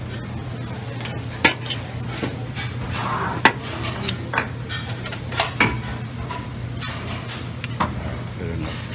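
Metal serving tongs clinking and scraping against a stainless-steel steam-table pan, several sharp clinks at irregular intervals, over a steady low hum.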